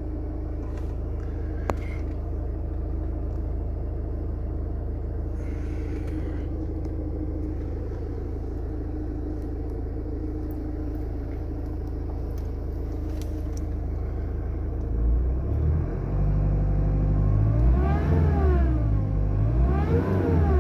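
Mercedes A-Class 1.7 CDI four-cylinder diesel engine idling steadily, then revved twice near the end, the pitch rising and falling each time, with a single sharp click about two seconds in. It makes a strange sound whose cause the owner does not know.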